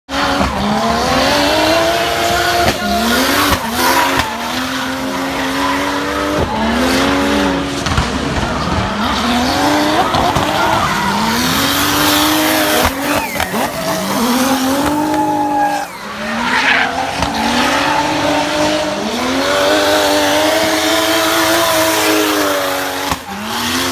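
Turbocharged 1JZ straight-six in a BMW E46 drift car revving hard and repeatedly, its pitch climbing and dropping every second or two, with sharp anti-lag bangs and tyre squeal through the slide.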